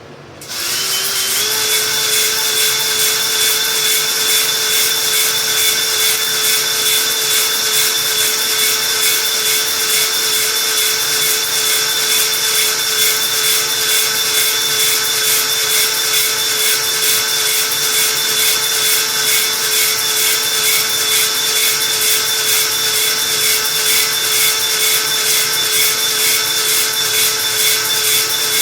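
Cordless drill spinning a ball (flex) hone inside a cast-iron cylinder bore. The drill starts about half a second in, speeds up briefly, then runs at a steady whine under a continuous scraping hiss from the abrasive balls on the cylinder wall.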